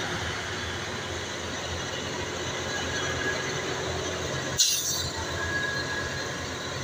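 Heavy tanker truck on a steep grade: a steady low engine drone with a thin squeal now and then, broken by a short sharp hiss about two-thirds of the way through.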